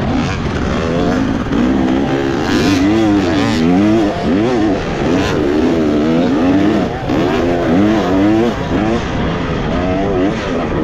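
Motocross dirt bike engine at race pace, revving up and down over and over as the throttle is worked, its pitch rising and falling every second or so.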